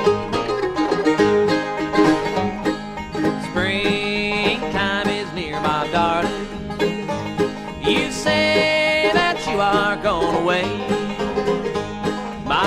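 Bluegrass band music, a sung-free instrumental passage with banjo, mandolin, guitar and bass playing together. Sliding lead melody lines stand out about four seconds in and again about eight seconds in.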